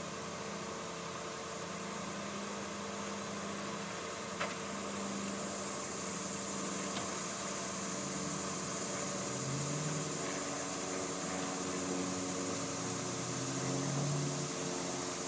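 Truck engines idling steadily under a constant hiss, with one sharp click about four seconds in.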